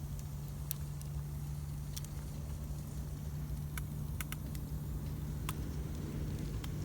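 Campfire wood crackling, with scattered sharp pops, over a steady low hum.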